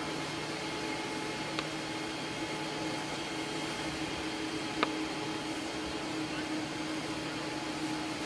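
Fire engine's pump running steadily under load, a continuous hum with a hiss of hose water spray, while water is pumped to hose jets on a house fire. Two faint clicks, about one and a half and five seconds in.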